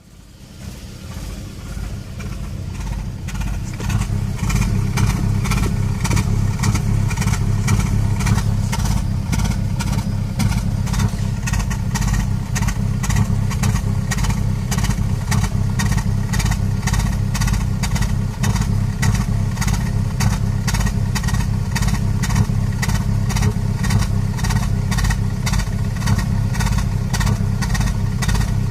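2011 Toyota Prius's 1.8-litre four-cylinder petrol engine running with a steady, rapid pulsing. It swells up over the first few seconds and then holds steady. The owner reports this engine as misfiring.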